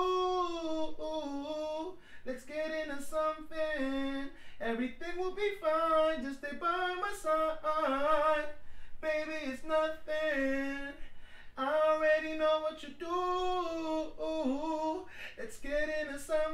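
A man singing a melodic vocal line into a studio microphone with no accompaniment, in phrases of held notes about two seconds long with short breaths between them.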